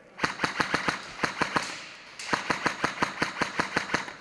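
Airsoft electric gun, a G&G GK5C, firing on full auto: two long bursts of rapid, even, sharp shots, about eight a second, with a short pause between them.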